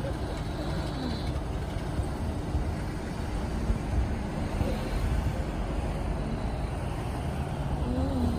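City street traffic at an intersection: car engines and tyres, with vehicles waiting at the light and then pulling away and passing once it turns green about midway.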